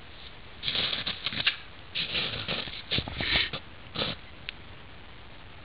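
A few short bursts of rustling in a row, from a nylon jacket sleeve and hands working a fishing line at an ice hole.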